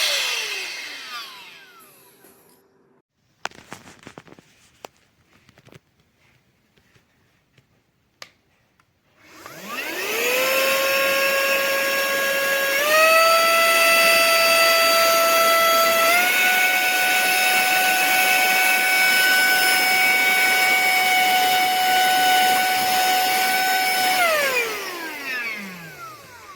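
Tiazhan handheld vacuum's small high-speed motor winding down, a few clicks of handling, then spinning up to a steady whine. The whine steps up in pitch twice as the motor moves to higher speeds, then winds down near the end.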